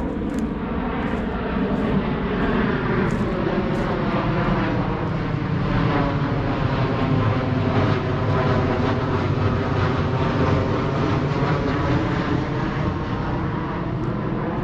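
Airplane flying overhead: a continuous rumble that swells to its loudest in the middle and fades a little toward the end.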